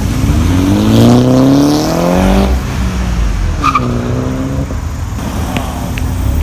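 Car engine revving hard under acceleration, its pitch climbing for about two seconds, then a second, shorter rev. A few sharp exhaust pops come near the end.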